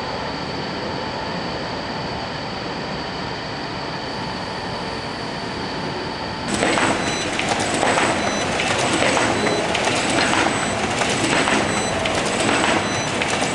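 Paper-converting machine running, the kind that makes three-side expandable paper pouches. At first it gives a steady hum with a few fixed tones. About halfway through it turns suddenly louder, with a regular mechanical clatter and short, repeated high tones as it cycles.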